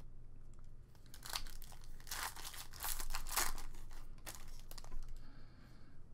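A football trading-card pack's wrapper crinkling and being torn open by hand, in a run of loud crackling rips over a couple of seconds and then two shorter crackles.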